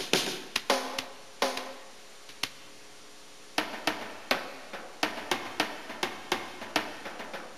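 Percussion music: separate drum hits, some ringing briefly after the strike. A cluster of hits comes first, then a lone hit, and from about halfway a quicker, uneven run of hits.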